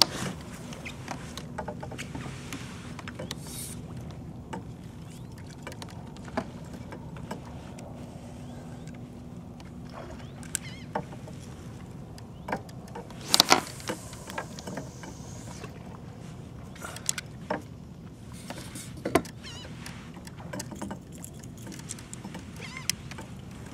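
Kayak on open water: a steady low wash of water against the plastic hull, with scattered sharp knocks and clicks from fishing gear on the boat, the loudest a quick cluster of knocks about halfway through.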